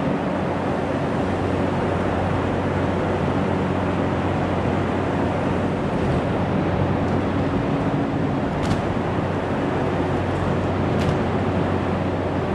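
Large electric hangar door running as it opens: a steady mechanical drone with a low hum, and a couple of faint clicks.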